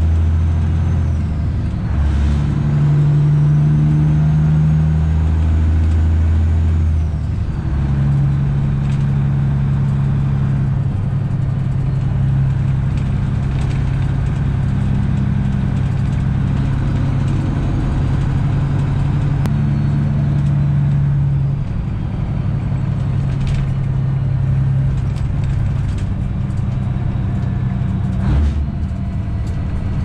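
Heavy truck's diesel engine heard from inside the cab while driving, a steady low drone whose pitch changes a few times as the driver shifts through a 13-speed manual with a twin-stick auxiliary shifter. There is a short knock near the end.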